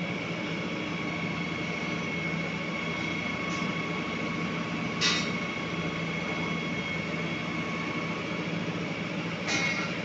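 Truck-mounted concrete pump running steadily, its engine and machinery droning under a thin, steady high whine. A sharp metallic clank comes about five seconds in and another near the end.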